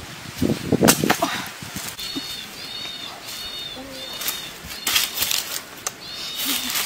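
Santol fruits thudding down into dry leaf litter with crunching about a second in, then scuffs and crunches of bare feet on dry leaves. From about two seconds a bird gives a short high chirp again and again, about twice a second.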